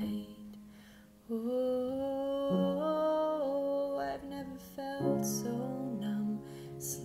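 Piano playing slow, sustained chords, with a woman's voice entering about a second in and holding long wordless notes over it.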